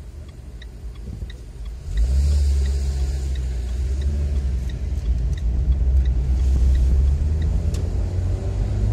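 Car pulling away from a standstill and driving on, heard from inside the cabin as a loud low rumble that starts about two seconds in. A turn-signal indicator ticks steadily the whole time.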